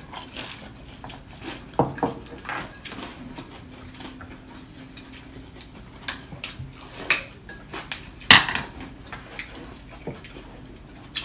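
Chopsticks clicking and clinking against ceramic bowls and plates while people eat, in scattered light taps, with one louder knock about eight seconds in.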